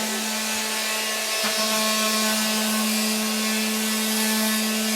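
An electric power tool's motor running at a steady pitch while working the wood, with a brief dip in pitch about a second and a half in.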